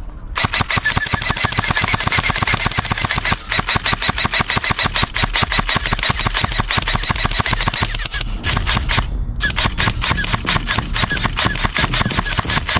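Airsoft rifles firing long, rapid full-auto strings, a fast clatter of shots, with brief breaks about three and nine seconds in.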